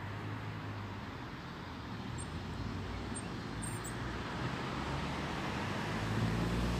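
Road vehicle running: a steady low engine-and-road hum with no distinct events, slowly growing louder.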